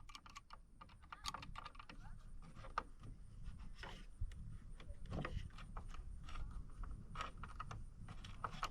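Irregular light clicks and taps, a few closely spaced at times, of small parts and hardware being handled during the camera bracket installation.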